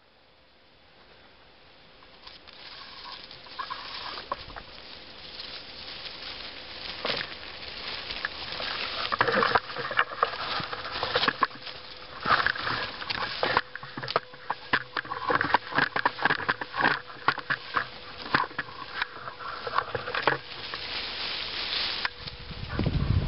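Rustling and crackling of dry autumn leaves, twigs and brush, with many irregular clicks and snaps, as someone moves and forages through woodland undergrowth. It fades in over the first few seconds, then carries on densely, with a brief low thump near the end.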